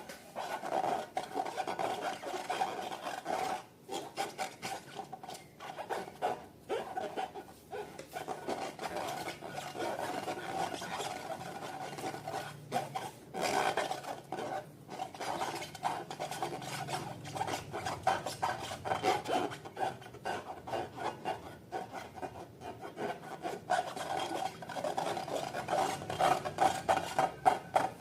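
Slime being mixed and worked, a continuous sticky, crackly rasping with a couple of brief pauses early on.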